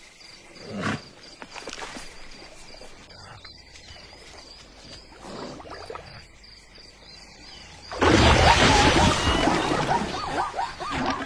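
Animal sounds: quieter noises with a brief louder call about a second in, then a sudden loud stretch of calls with a fast, wavering pitch for the last few seconds.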